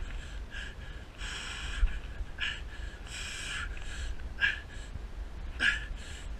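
Hard, laboured breathing close to the microphone from someone hauling up a climbing rope: a series of short, sharp breaths with two longer gasping ones.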